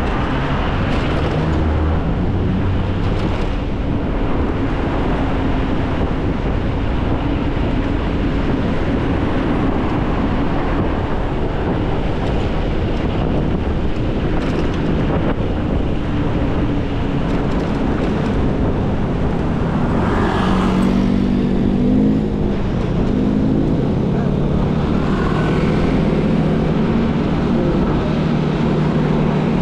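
Steady wind rush and road noise from riding an electric scooter through city traffic at about 40 km/h. From about 20 seconds in, a low engine hum from surrounding traffic grows more prominent.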